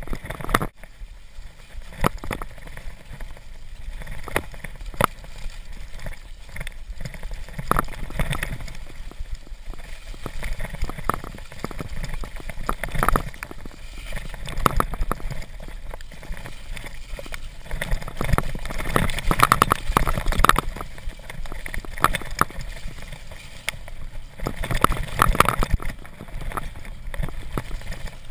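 Mountain bike ridden down a wet, snowy, muddy trail: tyres rolling through slush and mud, with frequent knocks and rattles from the bike over bumps.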